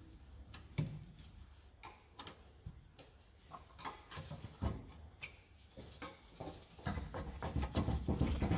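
Flat screwdriver prying a VW Golf Mk7 rear brake caliper off its carrier: scattered metal clicks, scrapes and knocks, growing busier near the end as the caliper is worked loose.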